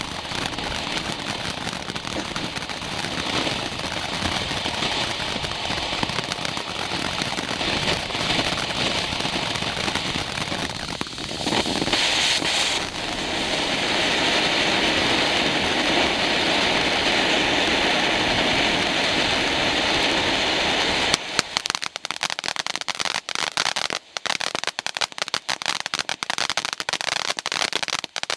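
"Summer Time" ground fountain firework spraying sparks with a steady hiss and crackle, the hiss growing louder and steadier about halfway through. About 21 seconds in, the hiss gives way to dense, rapid crackling pops.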